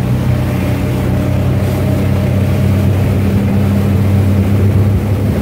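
Motorboat engine running steadily while the boat is under way, its low hum over a constant rushing hiss.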